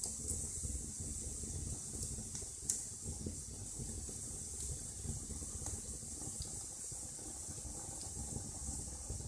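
Wood fire burning in a fireplace: a steady hiss and low rumble of the flames with scattered sharp crackles, the loudest pop about three seconds in.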